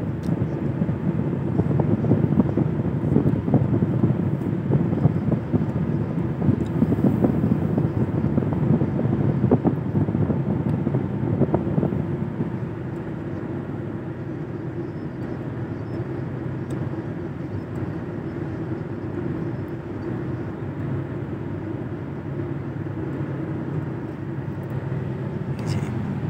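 Steady road and engine noise inside a moving car's cabin: a low rumble of tyres on a wet road, a little louder for the first twelve seconds or so and then easing slightly.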